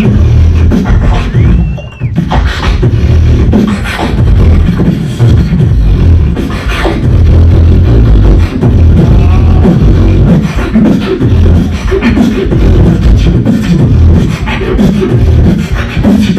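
Live beatboxing through a handheld microphone: deep bass kicks and sharp snare-like clicks in a continuous rhythm, with a brief sliding whistle-like tone about two seconds in.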